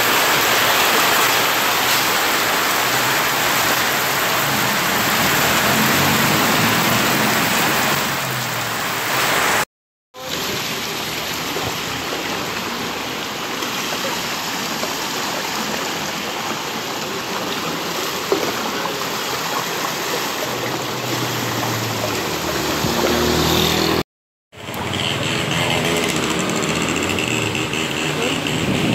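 Heavy tropical-storm rain pouring onto a street, then the rush of muddy floodwater flowing through a narrow alley and along a flooded channel. The sound drops out briefly twice, at about ten seconds and near the end.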